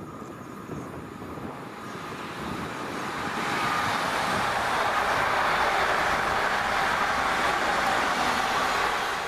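A train approaching on the line, the rumble and hiss of its wheels on the rails building up from about three seconds in and staying loud to near the end.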